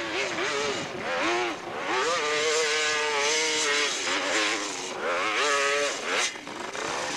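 Dirt bike engine revving hard under load on a steep hill climb, its pitch surging up, holding high and dropping back several times as the throttle is worked.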